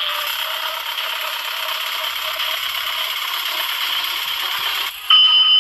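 A cockpit warning device giving a loud, steady mechanical rattle for about five seconds. It cuts off sharply, and a steady electronic alarm tone starts just before the end.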